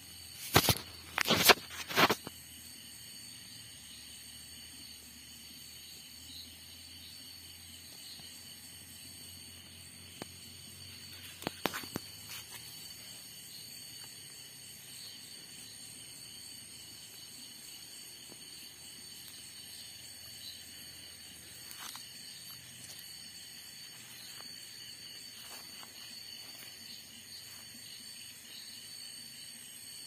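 Steady high chirring of night insects. A few sharp knocks come about a second in, and a couple more near the middle.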